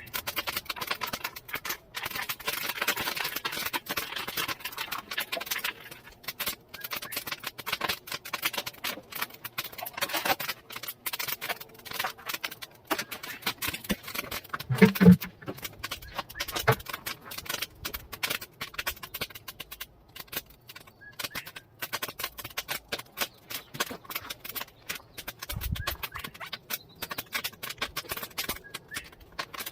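Coal fire in a homemade forge crackling and popping with many irregular sharp snaps, with a rush of air in the first few seconds and a single louder knock about halfway through.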